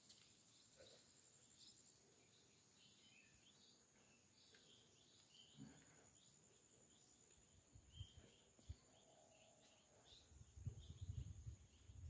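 Faint outdoor ambience: a steady high insect trill with short bird chirps scattered throughout. A few low thumps come in the last few seconds.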